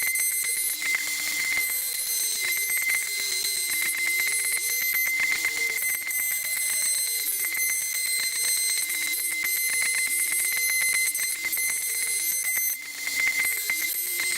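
Electric router cutting a groove in wood for a T-track, its motor giving a high steady whine. A lower pitch rises and falls as the motor slows under the cut and picks up again. The sound drops briefly near the end.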